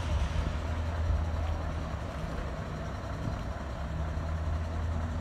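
Motor vehicle engine running with a steady low hum, over the noise of road traffic.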